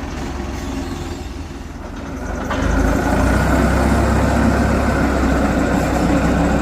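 Heavy construction machine's engine running with a steady low drone, growing louder about two and a half seconds in and holding there.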